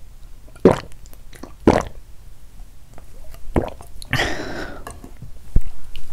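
Close-miked swallowing of a probiotic drink: three short gulps about a second apart, then a longer noisy mouth sound about four seconds in.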